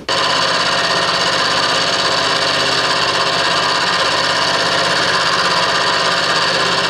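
Milling machine running steadily with an end mill cutting through a steel block on a finishing pass: a steady machine whine made of many even tones, without change.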